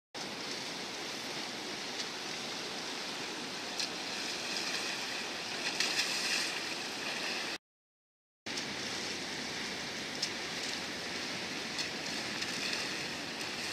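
Water splashing and sloshing as a short whitewater playboat kayak is tipped and flipped end over end on flat water, with bursts of spray about four to six seconds in and again near the end, over a steady outdoor hiss. The sound cuts out completely for under a second midway.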